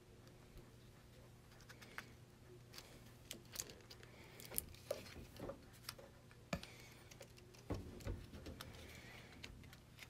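Scattered clicks, taps and knocks of a power strip's plastic housing and circuit board being handled and worked apart by hand, with a few duller thumps near the end.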